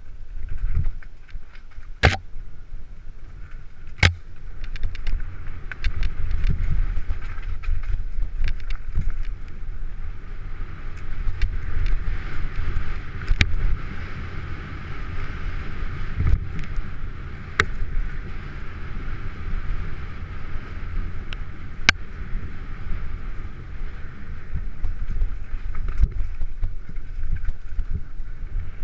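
Wind buffeting a helmet-mounted camera's microphone as a mountain bike rides a dirt trail at speed, with the hiss of tyres on dirt. Several sharp clacks come from the bike jolting over bumps.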